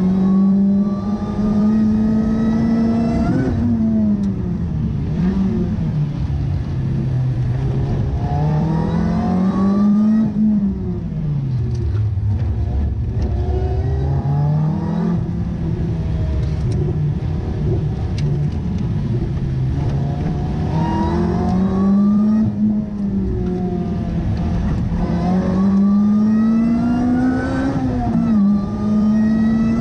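Lotus Elise's four-cylinder engine heard from inside the cabin, driven hard around a circuit. Its pitch climbs steadily through each gear with sharp drops at the shifts, and sinks as the car slows for corners, with road and tyre noise underneath.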